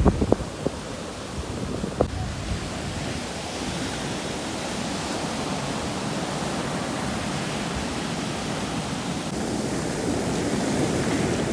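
Sea waves washing on a beach as a steady surf hiss, with wind buffeting the microphone in the first moments and a single click about two seconds in.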